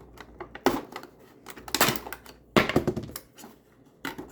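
Small plastic packaging being handled and opened by hand: about four short bursts of crinkling and clatter, the loudest two to three seconds in.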